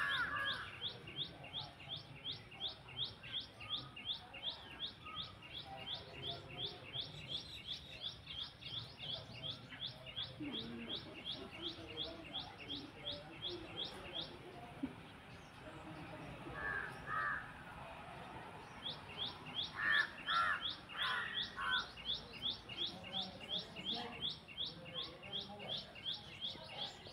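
A small bird calls a fast, even series of high chirps, about four or five a second. The series breaks off about halfway through and starts again some five seconds later. A crow caws a few times during the pause and soon after the chirping starts again.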